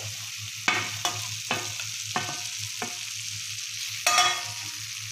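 A wooden spatula stirring paneer cubes into a thick curry gravy in a non-stick kadai: a series of scrapes and knocks against the pan, the loudest and longest about four seconds in. Under them runs the steady sizzle of the gravy cooking.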